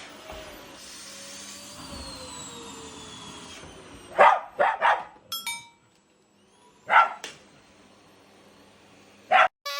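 A vacuum cleaner running steadily, then a dog barking in short sharp barks, first a quick run of three, then one, then one more near the end, as the dog faces off against the vacuum.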